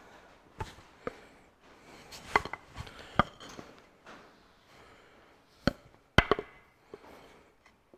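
Metal parts being handled: a Ferguson 23C diesel engine's connecting-rod cap and its bearing shell clinking and knocking as they are taken off and wiped with a rag. Several sharp clacks, the loudest a pair about six seconds in.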